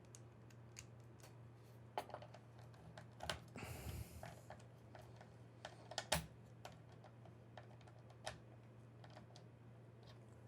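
Scattered small metal clicks and taps of a padlock being reassembled by hand, with its retaining screw dropped down the shackle hole and worked into place, and a short scraping rattle about four seconds in.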